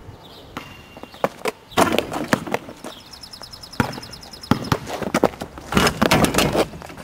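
Knocks of a basketball bouncing on pavement, with a louder cluster of knocks and rattles about six seconds in as a player dunks, ball and hand striking the rim and backboard of a driveway hoop.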